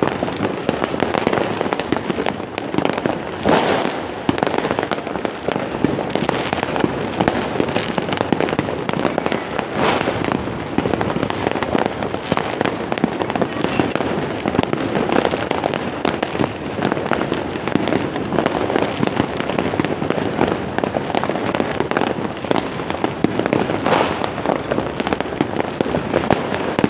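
Fireworks going off without a break: a dense, continuous crackle of many small pops and bangs, with a few louder bangs now and then.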